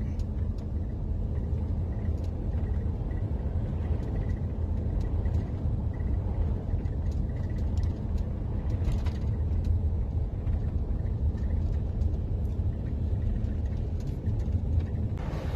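Steady low rumble of a box van's engine and running gear, heard from inside the cab.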